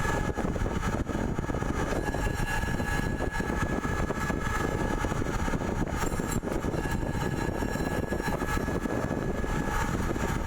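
CNC pipe threading lathe running: a steady mechanical rumble and hiss with a faint, steady high whine above it.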